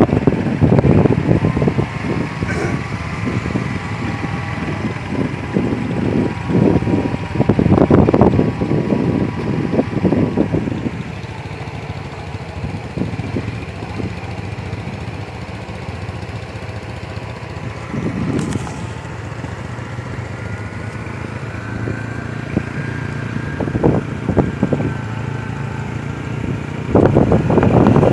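A small motorcycle running as it rides along the road, growing loud about a second before the end as it comes close. Irregular low rumbles on the microphone fill the first ten seconds.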